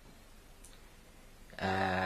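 Near silence with one faint click, then a man's voice holding a steady hesitation sound, like a drawn-out "uhh", near the end.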